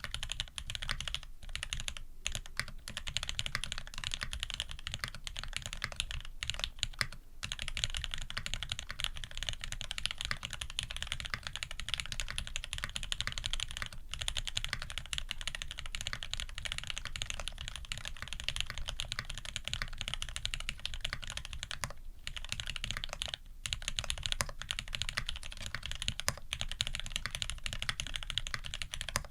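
Tx65v2 custom 65% keyboard being typed on fast and continuously: lubed SP-Star White switches with Thic Tock springs on a brass plate under GMK keycaps give a dense run of keystroke clacks, with a few brief pauses.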